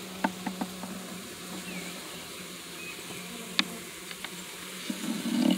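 A honeybee colony in an open nuc box buzzing with a steady low hum. Several sharp clicks sound early on and again about three and a half seconds in, and a brief louder rustle comes near the end.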